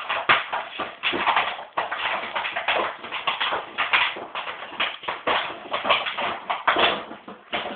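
Dog chewing and batting a soda bottle, the bottle crackling and scraping in quick, irregular bursts several times a second.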